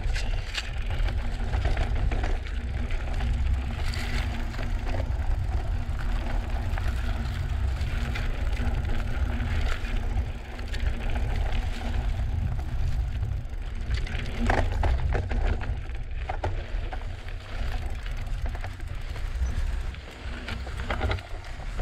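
Drop-bar mountain bike riding a rocky dirt trail: tyres crunching over rock and gravel, with scattered clicks and knocks from the bike over bumps and a heavy wind rumble on the microphone.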